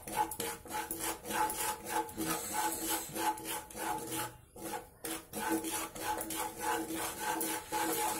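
Slotted wooden spatula scraping and stirring semolina and gram flour frying in ghee in a kadhai, in quick rhythmic strokes of about three a second. There is a brief break about halfway through.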